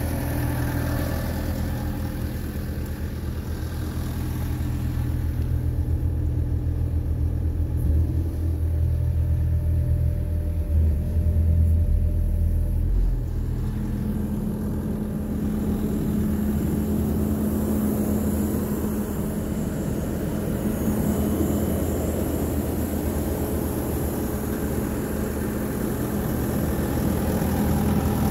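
2017 Bobcat skid-steer loader's diesel engine idling steadily. Its low hum changes character about halfway through.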